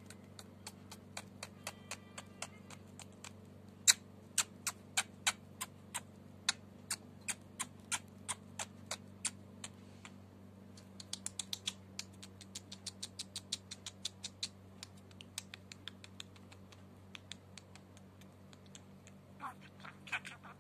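Budgerigar's beak pecking and tapping at a person's fingers: a long run of sharp separate clicks, about two or three a second and then faster, with a few short chirps near the end.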